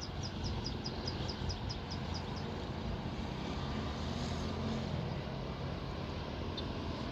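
Strong wind buffeting the microphone, a steady low rumbling roar. A rapid series of short, high chirps, about five a second, runs over it and stops about two and a half seconds in.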